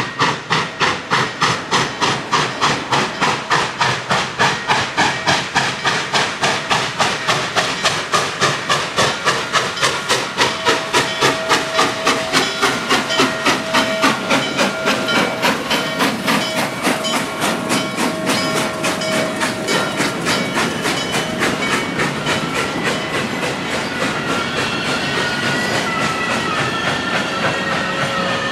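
Norfolk & Western Class J 611, a 4-8-4 steam locomotive, passing close by under power, its exhaust chuffing in a quick, even beat. After the engine goes by, the beat gives way to the rumble and clickety-clack of the passenger cars rolling past, with wavering wheel squeal near the end.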